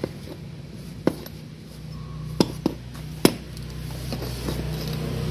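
Sharp metal clinks and knocks, about five, as a CV joint drive shaft is handled and wiped with a rag over a metal pan on concrete. Under them a low motor hum grows louder toward the end.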